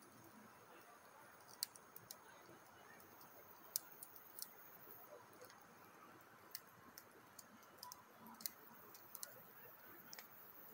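Wood fire in a fire pit crackling faintly: sparse, irregular sharp pops and ticks over near silence.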